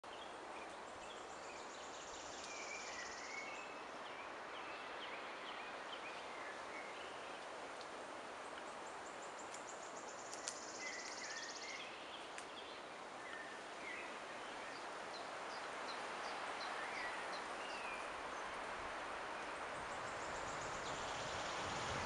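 Wind rushing through pine trees as a steady hiss that grows louder over the last few seconds. Small birds chirp and call throughout, with a high, fast trill heard three times.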